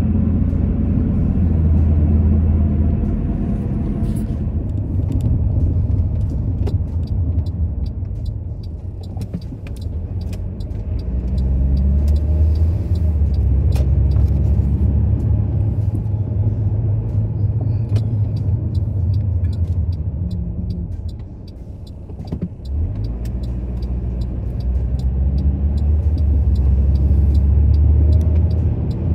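Car interior noise while driving: a low engine and road rumble that rises and falls with speed, dropping off briefly about three-quarters of the way through and then building again.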